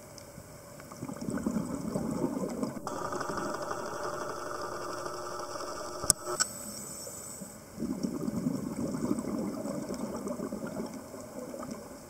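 A scuba diver's exhaled regulator bubbles, heard underwater: two bursts of bubbling a few seconds apart, with a fainter hiss between them. There is a single sharp click about six seconds in.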